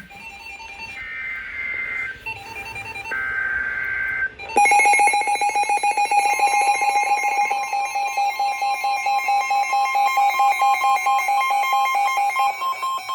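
Emergency Alert System tones: two short, buzzy, screeching digital data bursts of the SAME header, about a second apart, that mark the start of a new alert. About four and a half seconds in, the loud, steady two-pitch EAS attention alarm begins and holds, with a rapid flutter through it.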